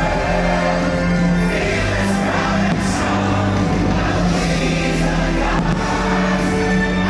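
Orchestral show music with a choir singing long held chords.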